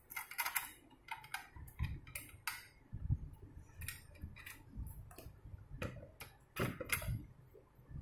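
Irregular clicks and light knocks of a fingerprint door lock being handled, its lever handle and thumb-turn worked by hand, with a few dull thumps.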